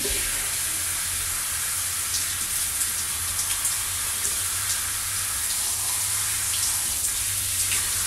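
Shower running, a steady hiss of water spraying and splashing down.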